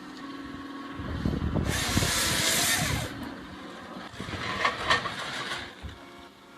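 Heavy machinery running with a steady hum, broken about two seconds in by a loud rushing hiss lasting about a second. Shorter bursts of noise follow near the five-second mark.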